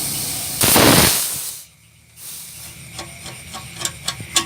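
Compressed air hissing, swelling suddenly louder and then dying away within about a second, followed by a few light clicks and taps.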